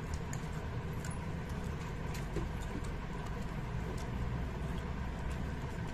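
Steady low background hum with faint scattered clicks and smacks of eating: chewing, and fingers working luchi on a steel plate.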